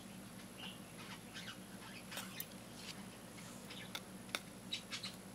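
Faint scattered clicks and scratches of metal tweezers picking packing tissue out of a small plastic vial, the clicks coming closer together in the second half, over a steady low hum.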